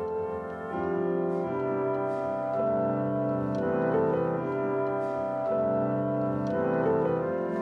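Background music: held chords that change about once a second, with light ticks over them.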